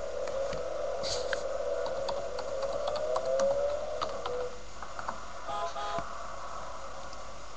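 Scattered clicks from a computer keyboard and mouse, over a steady wavering hum that fades about halfway through. Near the end a short pitched tone sounds twice.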